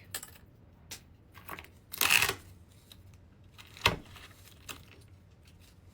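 Tabletop handling noises: a few light clicks, a short tearing or crinkling rustle about two seconds in, and a single sharp click near four seconds.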